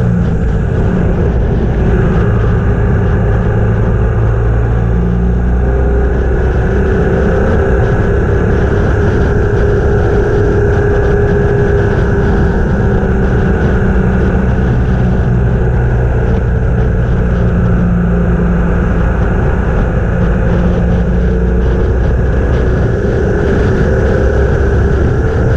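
Motorcycle running steadily on the road, its engine note drifting slowly up and down over a loud, steady rushing noise.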